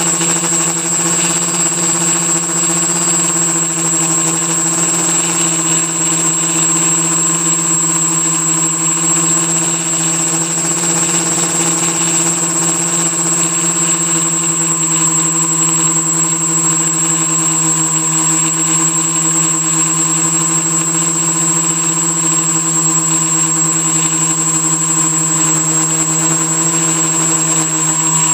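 Quadcopter's electric motors and propellers running steadily in flight, heard from a camera taped to its frame: a steady multi-toned buzz that holds the same pitch, with a thin high whine above it.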